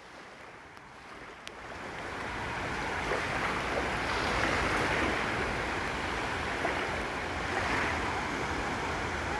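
Sea waves washing onto a beach: a steady wash of surf that swells up over the first few seconds and then holds, with a low rumble of wind on the microphone underneath.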